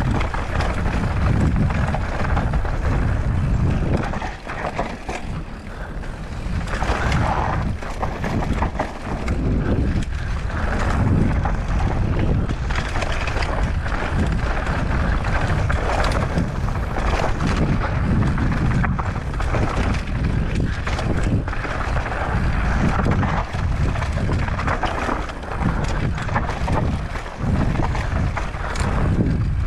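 Mountain bike riding fast down a rough, loose trail: tyres crunching and skidding over dirt and stones, with the bike knocking and rattling over bumps and wind rushing over the microphone.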